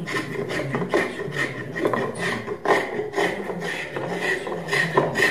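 A hand-held edge tool scraping and cutting across a walnut chair seat in quick repeated strokes, two or three a second, as the seat is shaped. A faint voice runs low underneath.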